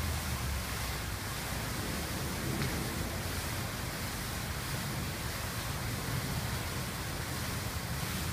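Tiered stone garden fountain splashing steadily: a constant hiss of falling water with a low rumble underneath.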